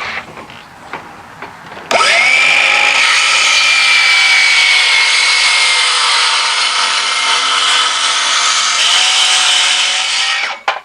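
Circular saw starting about two seconds in, its whine rising as the blade spins up, then cutting full depth through a sheet of plywood with the pitch sagging slightly under load; the sound cuts off abruptly near the end.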